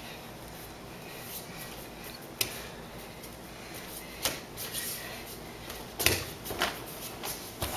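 Bare feet stepping and slapping on judo mats, with cotton judo jackets rustling as two judoka grip and move. There are a few sharp slaps, the loudest about six seconds in.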